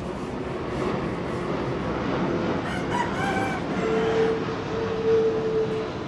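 Steady rumble of a jet airliner flying low overhead. About halfway in, a loud animal call cuts across it: a few short notes, then one long held note lasting about two seconds.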